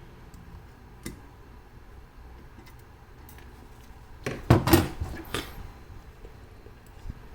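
Small metal objects clinking and clattering against each other on a hard surface: one light click about a second in, then a quick burst of several knocks near the middle.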